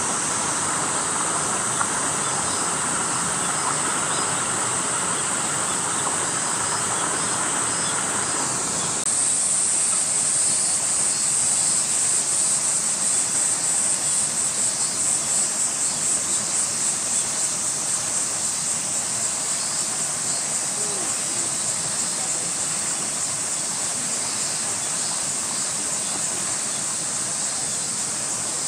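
Cicadas singing in a steady, high-pitched drone. About nine seconds in, the song starts to swell and fade about twice a second, then evens out again after about ten seconds.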